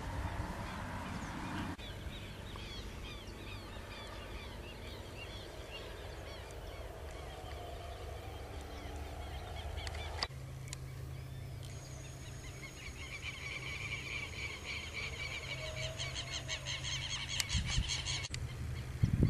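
Several birds calling in quick, repeated chirps, densest near the end, over a steady low rumble.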